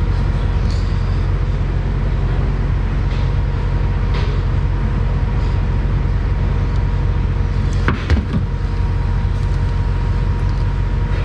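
Steady, loud mechanical hum with low droning tones, with a brief click about eight seconds in.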